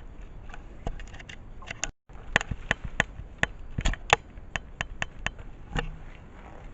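Irregular sharp clicks and taps, a few a second, from a picture book being handled and opened, with a brief cut-out of all sound about two seconds in.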